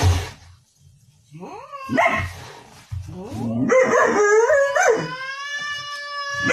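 Husky yelping and whining in short calls that rise and fall in pitch, then holding one long steady howl for the last second and a half.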